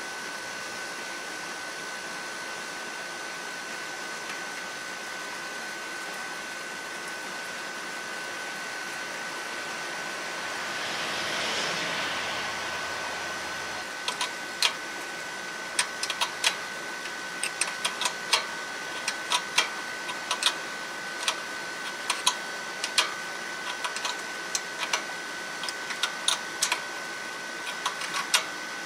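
Irregular sharp metallic clicks in small clusters, starting about halfway through: a wrench tightening a new oil pressure switch into a Generac standby generator's engine. Before the clicks, a brief swell of rushing noise rises and falls over a steady hiss with a faint high whine.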